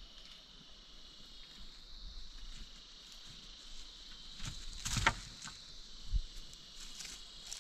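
Steady high-pitched insect chorus, with a few scattered knocks and taps around the middle.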